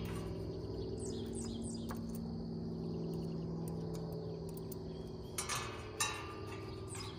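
A steady low hum with a few light clicks and taps of metal parts being handled on a sheet-metal roof-drain template plate, the sharpest tap about six seconds in.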